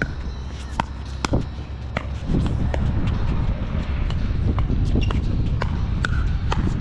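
Pickleball paddles hitting the plastic ball in a fast doubles rally: a run of sharp pops about every half second, over a steady low rumble that grows louder about two seconds in.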